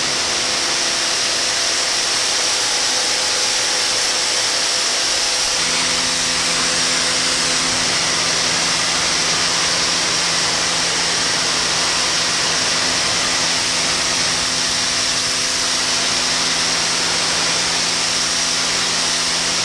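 Portland 1750 PSI corded electric pressure washer running, with a steady electric motor and pump hum under the hiss of the water jet; about five and a half seconds in, the hum shifts to a lower, stronger tone.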